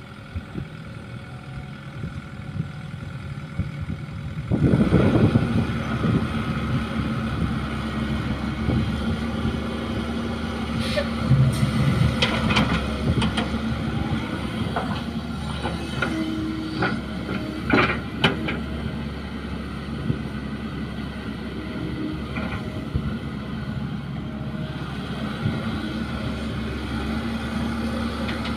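Caterpillar tracked excavator's diesel engine running, getting louder about four seconds in as it works under load. A run of sharp clanks and knocks comes in the middle as the bucket digs and loads soil into a steel dump-truck bed.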